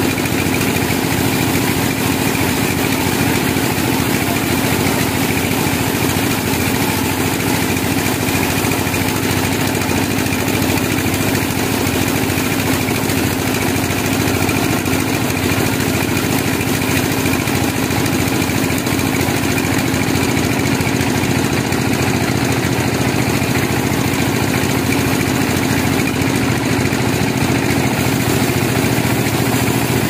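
Large band sawmill running and sawing a log lengthwise: a loud, continuous machine hum with one steady pitch and no letup.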